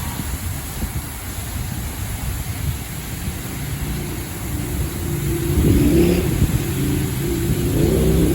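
LaserWash 4000 touchless car wash machinery running with a low rumble. About halfway in, a motor's droning hum comes in and swells, loudest a second or two later and again near the end. The uploader calls it a horrible, bad motor.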